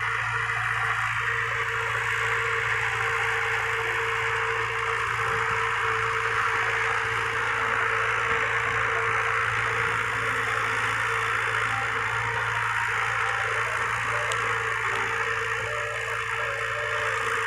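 Diesel engine of a 640 tractor running steadily under heavy load while pulling a disc harrow through dry, hard ground, with the disc harrow scraping through the soil.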